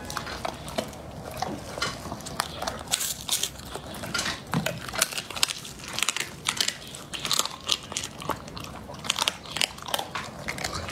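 A chocolate Labrador chewing raw bone-in meat, with many irregular crunches as it bites through.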